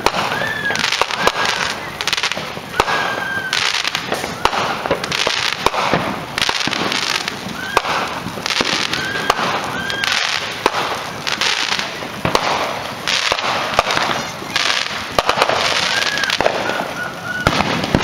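Consumer fireworks going off all around: near-continuous crackling and popping with sharp bangs, and many short whistles.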